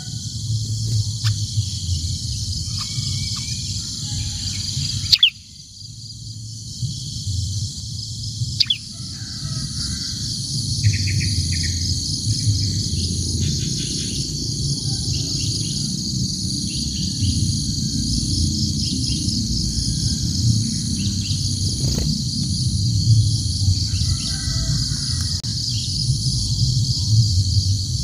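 A steady, high trilling insect chorus with a low rumble beneath it, and a few faint short bird chirps. A quick high bird call comes right at the end.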